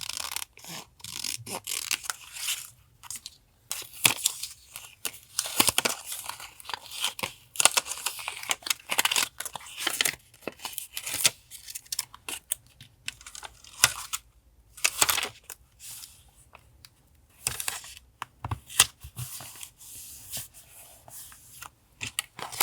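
Paper being torn by hand: a run of short, uneven rips with brief pauses between them.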